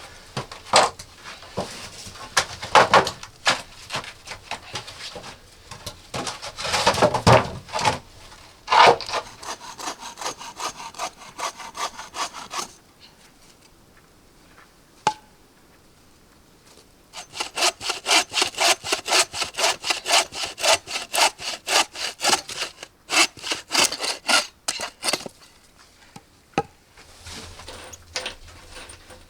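Hand saw cutting wood in quick back-and-forth strokes, uneven at first, then a few seconds' pause, then a long run of fast, even strokes.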